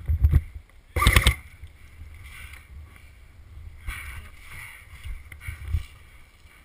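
Low rumble of wind and movement on an action camera, with a short quick clatter of sharp clicks about a second in.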